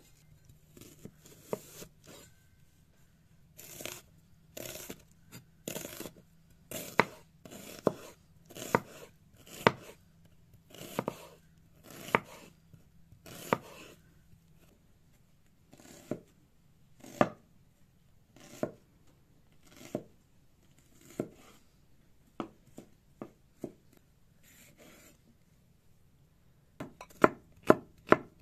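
Large cleaver-style knife slicing an onion on a wooden cutting board: crisp cuts, each ending in a knock of the blade on the board, about one a second. Near the end it quickens to rapid chopping.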